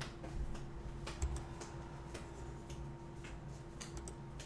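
Faint, irregular clicking at a computer, a few small clicks a second with uneven gaps, over a steady low electrical hum.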